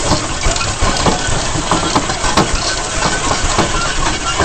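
Engine of a vehicle towing a sled at speed through snow, under a steady rushing noise with frequent irregular knocks as the ride jolts over the snow.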